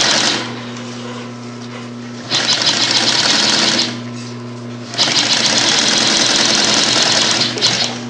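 Dürkopp Adler 204-370 extra-heavy triple-feed sewing machine stitching through thick lifting-sling webbing in two runs, the first about two seconds in and the longer one about five seconds in. Between the runs the motor keeps up a steady hum.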